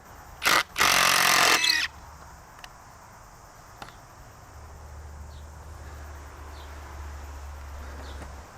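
Metal camera pole being lowered: a short loud scrape, then about a second of loud scraping with a squeal in it. A faint low hum follows later.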